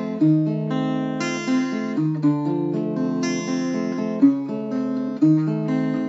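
Background music: acoustic guitar strumming chords and picking a melody, an instrumental passage of a song.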